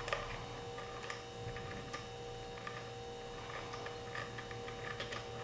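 Faint, irregular light clicks of small metal parts being handled as the stock stem cap is worked off a mountain bike's headset, over a steady faint hum.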